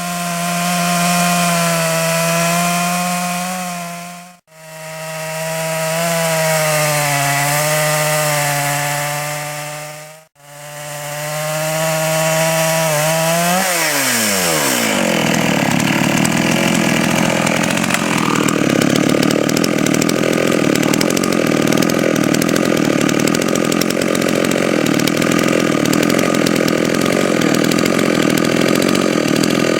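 Chainsaw with a small log mill clamped to its bar running at high revs with a steady tone, briefly cut off twice. About thirteen seconds in, the engine pitch drops as the chain bites into the log. It then runs on steadily under load, ripping a plank lengthwise.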